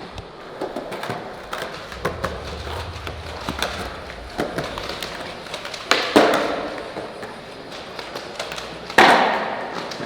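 Skateboard wheels rolling over smooth ground, with scattered clicks and knocks and two loud clacks of the board hitting the ground, about six and nine seconds in.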